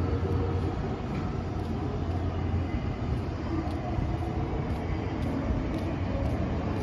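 Steady low rumble of city traffic along a wide downtown street, with no single vehicle standing out.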